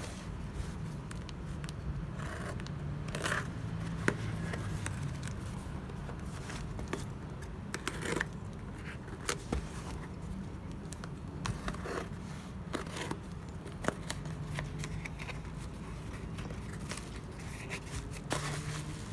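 Utility knife slicing packing tape on a cardboard parcel, with a run of sharp clicks, scrapes and tearing as tape and cardboard flaps are cut and pulled open, over a steady low hum.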